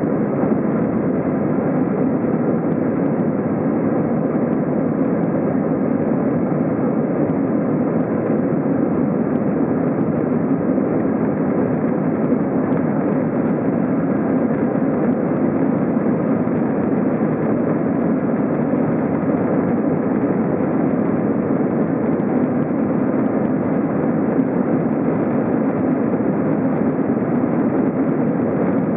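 Steady cabin noise of an Airbus A321 climbing after takeoff: the jet engines at climb power and rushing air, heard inside the cabin, loud and unchanging.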